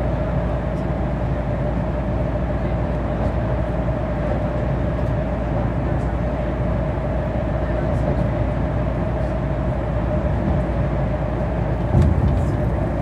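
Steady drone of a MAN shuttle bus's engine and tyres, heard from inside the cabin while it cruises, with a constant hum in the upper midrange. There is a short low thump near the end.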